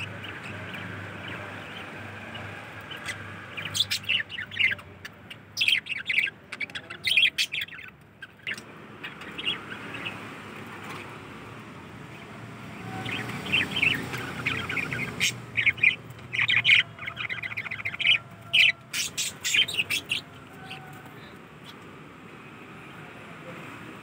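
Small cage birds, zebra finches and budgerigars, chirping: a busy flurry of short, sharp calls a few seconds in, a lull, then a second flurry around the middle.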